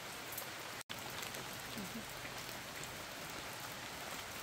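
Steady rain falling: an even hiss with scattered drop ticks, broken by a split-second gap in the sound about a second in.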